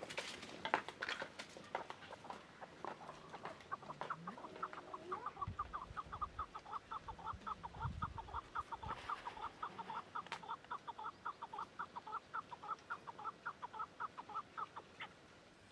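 Chickens clucking: a fast, even run of short clucks that starts a few seconds in and goes on until just before the end.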